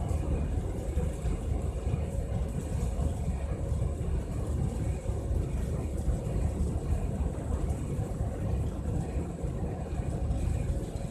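Biomass pellet burner running: a steady low rumble with a faint steady hum above it.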